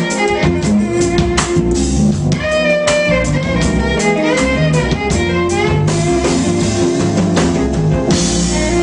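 Live R&B/funk band playing: a bowed violin carries the melody over electric guitar, keyboard, bass and drum kit, with a cymbal crash near the end.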